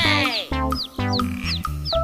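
Background music: an upbeat tune with a steady beat, a falling sweep at the start and short falling high notes repeating about twice a second.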